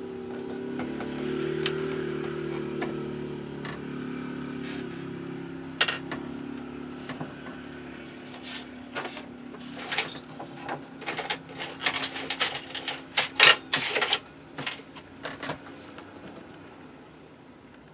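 A motor vehicle's engine droning in the background, slowly fading away. In the second half there is a run of sharp clicks and light knocks, the loudest about thirteen seconds in.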